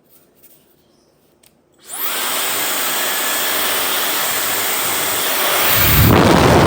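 A few faint clicks, then a high-speed brushless hair dryer switches on, its motor spinning up with a rising whine into a loud, steady blast of air. Near the end it grows louder, with a low rumble.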